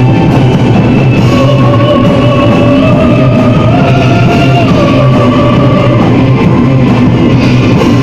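A gothic metal band playing live, loud and dense, with a held melody line that steps up in pitch around the middle and later drops back down.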